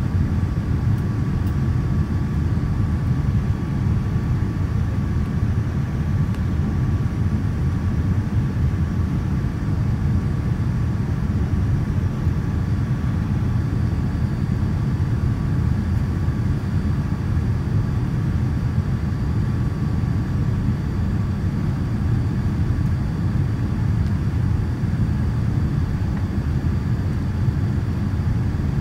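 Boeing 787-9 cabin noise on approach to landing: a steady low rumble of engines and rushing air, with a faint steady whine over it, heard from inside the cabin.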